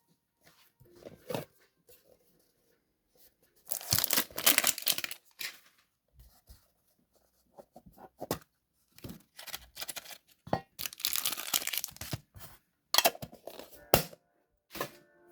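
Plastic shrink-wrap being torn and crinkled off a Pokémon TCG mini tin, in two longer spells of tearing with shorter rustles between. Two sharp clicks come near the end.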